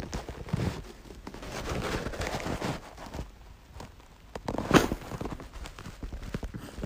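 Close, scratchy rustling and crackling with irregular soft thumps as a cat moves against the phone and the bedding, with one sharp knock about five seconds in.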